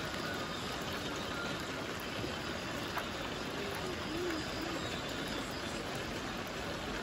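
Steady rushing of running water, with a faint short wavering tone about four seconds in.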